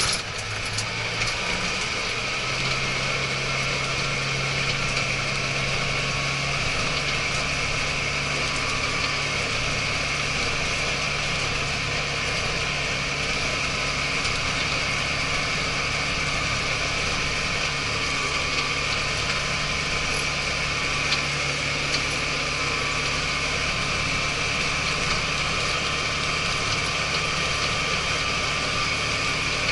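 Cab interior sound of an Iseki TJV semi-crawler farm tractor travelling on a paved road at about 12 km/h: the diesel engine runs at a steady note that rises slightly about two seconds in, over the steady mechanical noise of the rubber crawler tracks, a track noise that the owner finds a little worrying.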